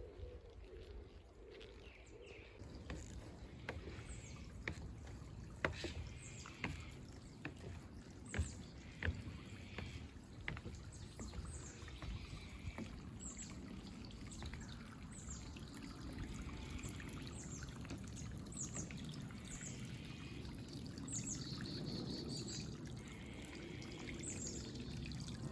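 Outdoor birdsong: short, high, falling chirps repeated about once a second over a steady low rumble, with a few sharp clicks in the first half.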